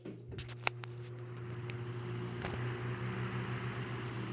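Antique Westinghouse Debonair 16-inch electric fan starting up on high: the motor hums steadily, a few sharp clicks come in the first second, and the rush of air from the blades builds over about two seconds and then holds steady, a smooth-running fan.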